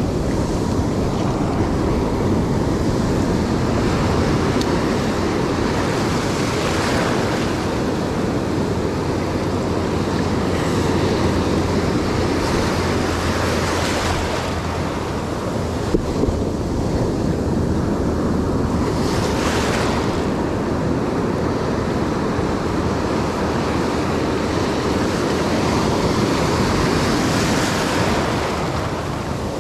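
Ocean surf washing and breaking around the microphone, with a wash surging up every several seconds, and wind rumbling on the microphone.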